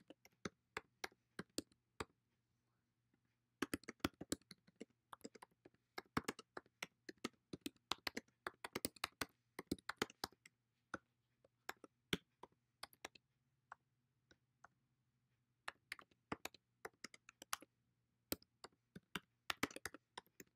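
Typing on a computer keyboard: quick runs of key clicks with two brief pauses, over a faint steady low hum.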